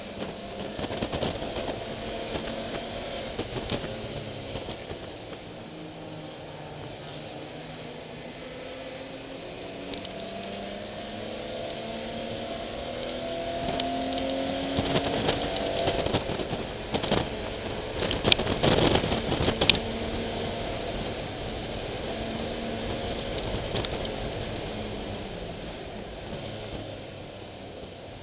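BMW E30 325iS's M20 straight-six running hard on track, heard from inside the cabin, its pitch climbing and dropping with throttle and gear changes. A cluster of sharp knocks and rattles comes about two-thirds of the way through.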